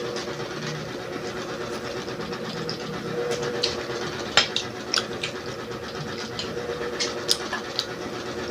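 Close-miked eating: chewing with irregular sharp mouth clicks and smacks, over a steady faint hum.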